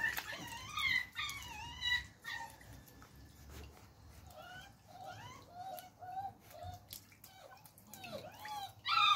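Beagle puppy whimpering and whining in a string of short, high-pitched cries while paddling in the water, louder in the first two seconds and again near the end.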